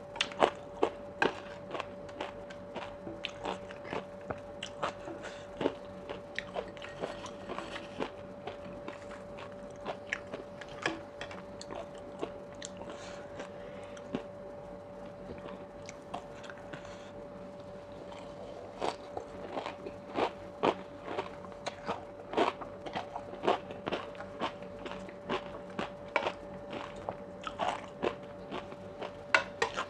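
A person chewing mouthfuls of sea grapes and spicy oyster salad with fried shallots close to a clip-on microphone: a rapid run of crisp crunches and pops, thinning out for a few seconds midway. A faint steady hum runs underneath.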